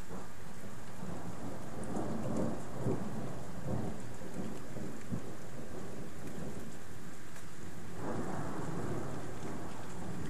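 Thunder rumbling over steady rain: a rolling peal swells about two seconds in and dies away, then a second rumble sets in sharply near the end.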